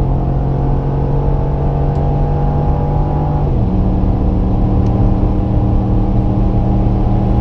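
Holden Commodore Motorsport Edition's 6.2-litre V8 engine running hard at steady high revs under load, with a small step down in pitch about halfway through.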